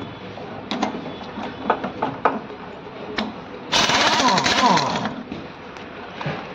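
Pneumatic impact wrench hammering for about a second and a half, undoing a bolt on a gearbox casing, after a few sharp metallic clicks as the socket is fitted to the bolt.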